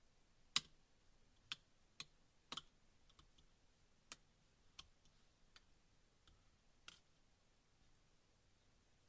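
Sharp little metallic clicks, about ten of them, with the loudest about half a second in and the last near seven seconds: a steel dental pick catching and snapping at the edge of a Microsoft Lumia 435's sheet-metal RF shielding lid as it is levered off the circuit board.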